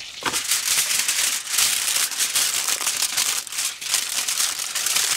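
Sheet of aluminium foil crinkling and crackling as it is folded and pressed over a plate by hand.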